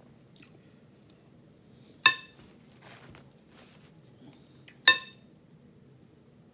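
Two sharp, ringing clinks, about three seconds apart, of a utensil knocking against a dish.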